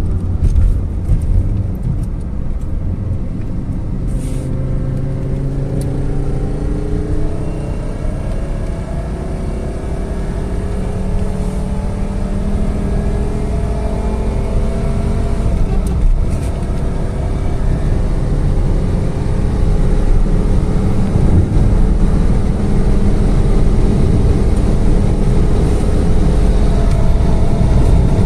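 Fiat Marea's five-cylinder Fivetech engine pulling under throttle while climbing. Its pitch rises steadily, breaks about sixteen seconds in as the driver changes gear, then climbs again.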